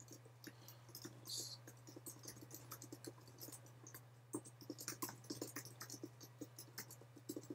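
Faint typing on a computer keyboard: a quick, irregular run of soft key clicks over a steady low hum.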